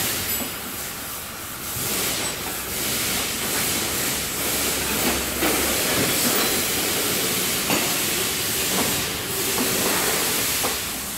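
A steady hiss of workshop noise, with light scrapes and ticks from a metal tool digging thick carbon sludge out of the Pajero's manifold port.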